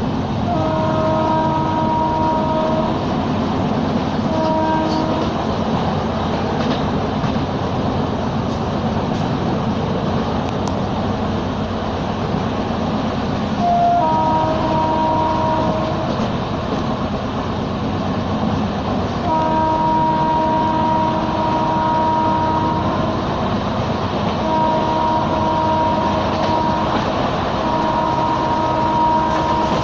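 Passenger train running at speed, heard from inside a carriage: a steady rumble of wheels on track. A train horn sounds about six times in blasts of one to four seconds, the longest near the middle.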